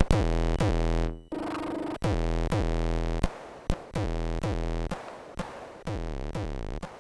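Commodore 64 chip music played on the 6581 SID sound chip: a synthesized beat of drum hits and bass notes with a higher melody. The music breaks off briefly about a second in, then runs on and grows quieter toward the end.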